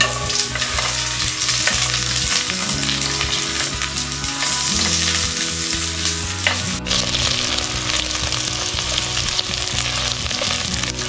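Garlic and onion sautéing in hot cooking oil in a pan, sizzling steadily with fine crackles while being stirred.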